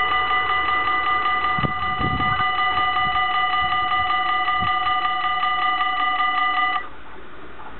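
Electronic level-crossing bells on a Dutch AHOB crossing, ringing rapidly and steadily while the half-barriers rise. The ringing cuts off suddenly near the end, as the barriers reach upright, with a few low thumps about two seconds in.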